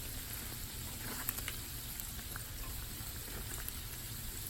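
Hot oil sizzling and bubbling steadily around biscuit-dough doughnuts frying in a pan, with a few faint crackles about a second in.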